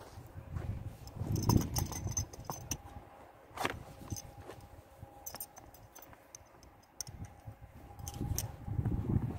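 Leather straps and metal buckles being handled as a leather tapadero is fitted over a saddle stirrup: scattered clicks and light jingling with leather rustling, busiest about a second and a half in and again near the end.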